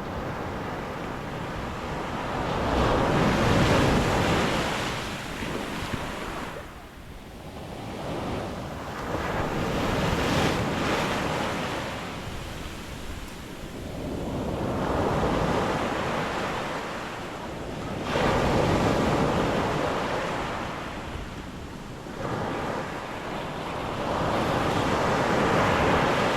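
Black Sea surf breaking on the beach: five waves in turn swell up and wash back, a few seconds apart.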